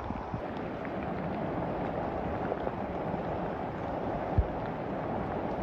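Downpour of rain, a steady hiss with scattered faint ticks, and a single knock a little after four seconds in.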